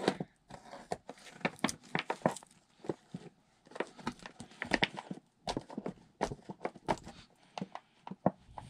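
Cardboard doll box and its plastic packaging being handled and picked open by hand: a string of irregular small clicks, taps and crinkles.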